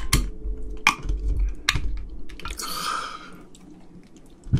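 Pull tab of a Hoegaarden beer can, worked with the fingers: a few sharp clicks, then a short hiss of escaping carbonation as the can opens, a little before three seconds in.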